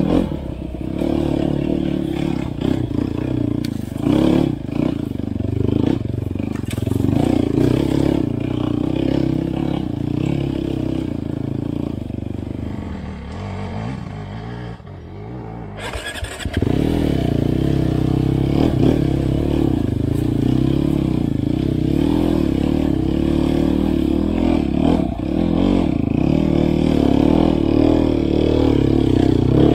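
Enduro dirt bike engine running under throttle on a trail ride, with a few sharp knocks in the first seconds. The engine note falls away for a few seconds around the middle, then picks up suddenly and runs on strongly.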